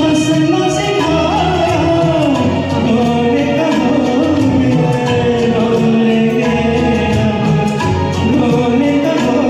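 Music: the backing track of a Hindi film song playing between sung lines, with sustained melody lines.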